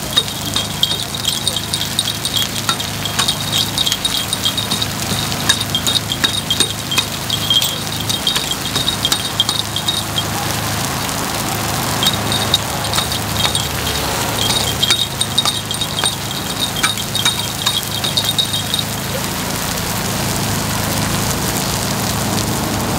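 Metal takoyaki picks clicking and scraping rapidly against a takoyaki pan as the balls are turned, over a low sizzle of frying batter. The clicking comes in two spells, breaking off briefly about halfway and stopping a few seconds before the end.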